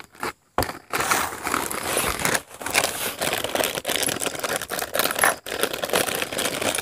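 A plastic snack wrapper crinkling and rustling as it is handled, a dense crackle that starts about half a second in and carries on.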